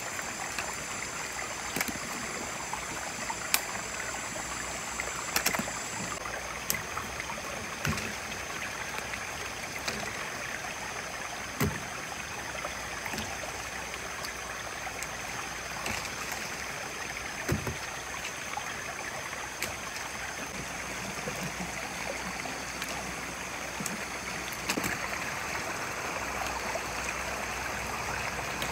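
Steady rushing of flowing water, like a stream, with a few thin, steady high-pitched tones over it, the highest stopping about six seconds in. Scattered light clicks and knocks, a few of them sharper, sound through it.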